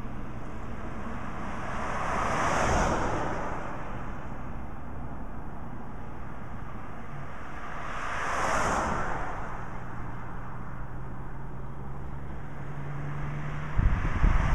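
Cars passing close by on a highway, swishing past twice, about two seconds in and about eight seconds in, over a steady low engine drone. Near the end another car goes by with low buffeting thumps of wind on the microphone.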